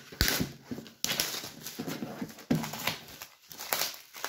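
Clear plastic shrink wrap crinkling and tearing as it is pulled off a cardboard jigsaw puzzle box, in irregular crackly rustles.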